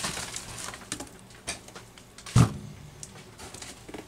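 A single heavy thud about two and a half seconds in as a Homelite XL12 chainsaw is set down on a hard floor. Scattered light clicks and rustles of handling and packing material come before and after it.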